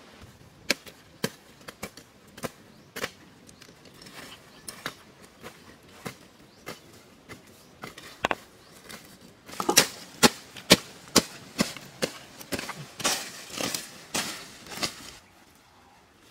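Hand tools chopping into brush and dry ground: sharp, irregular strikes, sparse at first and coming faster and louder about halfway. Near the end there is scraping and rustling of brush, then it stops.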